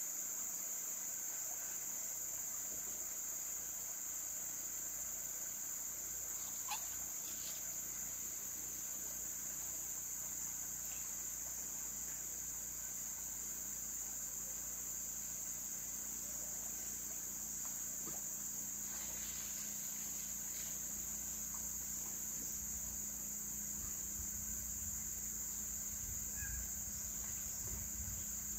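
A steady, high-pitched chorus of tropical forest insects buzzing without a break, with a single short click about seven seconds in.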